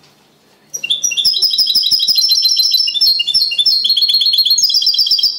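Male European goldfinch singing a fast series of repeated high chirping notes, a phrase of the copia malaga song. The song starts under a second in and stops abruptly near the end.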